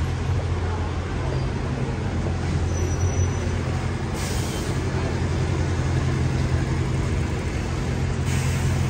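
City street traffic, with a large vehicle's engine running at a steady low hum.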